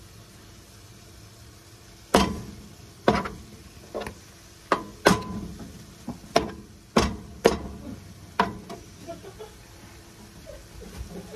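About ten sharp, irregular knocks and clacks over some six seconds, over a faint steady sizzle of meat and vegetables frying on an electric griddle.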